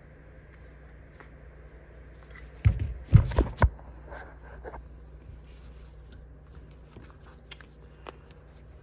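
Hatchet multi-tool being handled as its pliers are worked open: a quick cluster of loud metal clicks and knocks about three seconds in, then a few light ticks.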